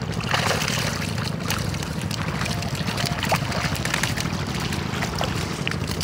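A steady low motor hum, likely a boat engine, runs under water splashing and fish flapping in a net being hauled through the shallows. There are small scattered clicks and a short burst of splashing about half a second in.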